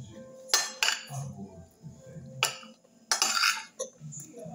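Metal spoon clinking and scraping against a plate during eating: a few sharp clinks, then a quick run of clinks about three seconds in.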